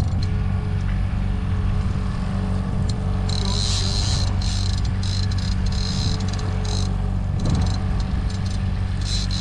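Boat's outboard motor running steadily at trolling speed, a continuous low drone, with short patches of hiss about three seconds in and near the end.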